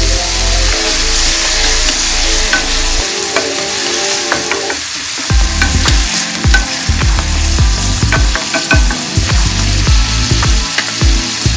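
Water sizzles as it hits a hot pan of oiled squash pieces. From about halfway on, a utensil stirs the squash and scrapes the pan, with frequent sharp clicks and knocks against the pan.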